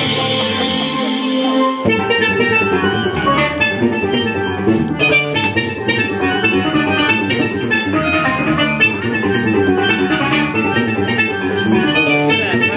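Live jazz-fusion trio: a steel pan plays a quick, busy melody over electric bass and drum kit. A dense, bright wash of sound stops abruptly about two seconds in, leaving the steel pan notes ringing out clearly in front.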